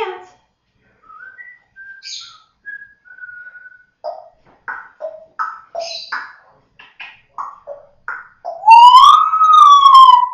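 African grey parrot whistling: a few short whistled notes, then a quick run of short chirps and clicks, then near the end a long, loud whistle that rises and falls in pitch like a siren.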